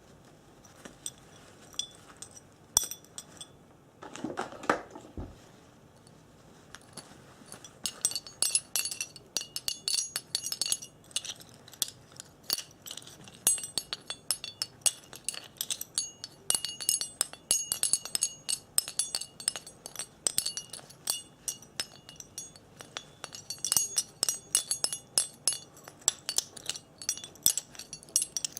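Rapid light taps and clinks on hard objects that ring with a high tone, like glass. A few scattered taps come first. The tapping turns quick and dense from about eight seconds in.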